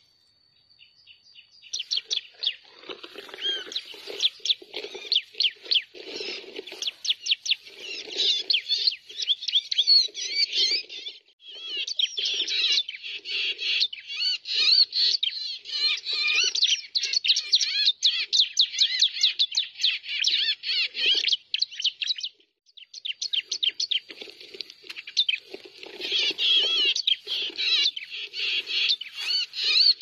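Rapid, continuous chirping of prenjak/ciblek (prinia) lure calls played from a phone, breaking off briefly about eleven seconds in and again about twenty-two seconds in.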